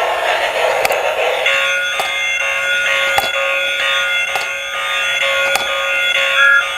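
Steady electronic buzzing tones from a battery-powered toy, with a light click a little more than once a second.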